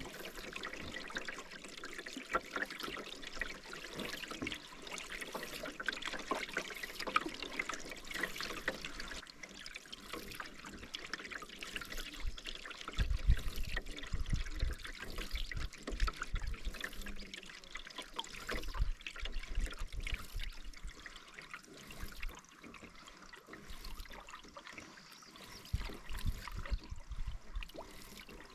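Water splashing and trickling around canoe paddles as they dip and pull through the river, with bursts of low rumble from about halfway through.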